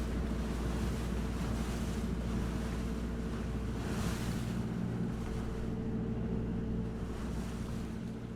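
A boat's engine running steadily at a low even pitch, with water splashing and washing alongside.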